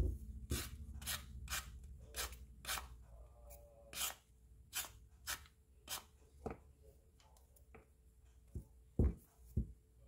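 Handheld vegetable peeler scraping down a raw carrot in short strokes, about two a second, thinning out after a few seconds. Near the end, two dull knocks as the peeler and carrot are set down on a wooden cutting board.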